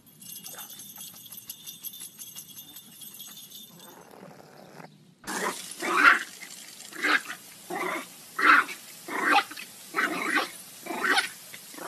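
A dog barking over and over, about one bark a second, starting about five seconds in. Before that there is a fainter high-pitched buzzy sound with fine ticking.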